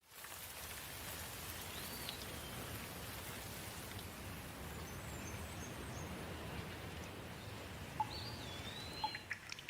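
Steady rain falling, an even hiss, with a bird calling in short whistled glides twice. A few sharp drip-like taps come in near the end.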